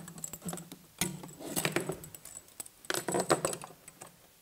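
Steel reformer springs and their metal hooks clinking and rattling as they are hooked onto eye bolts and laid down on the carriage: a run of short metallic clicks, loudest about three seconds in.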